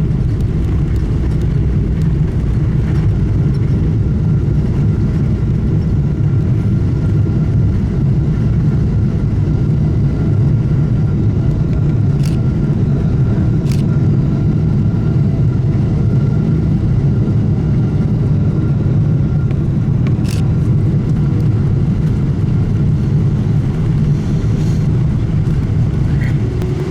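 Steady low rumble of engine and airframe noise inside the economy cabin of a Boeing 777-200LR taxiing after landing. A faint steady whine runs through it, and there are three light clicks.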